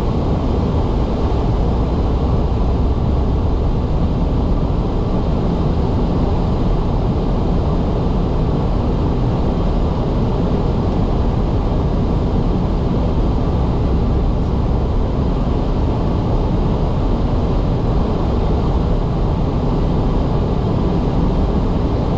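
Car driving through snow: a steady rumble of engine and tyres on the road, with no sudden events.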